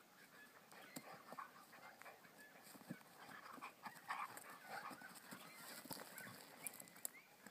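Two Maremma sheepdog puppies play-fighting, heard faintly: panting and scuffling, with a few sharp clicks.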